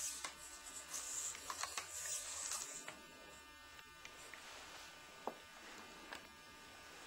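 Small R/C servos buzzing in short repeated bursts as they follow the joystick, stopping about three seconds in; a few faint clicks follow.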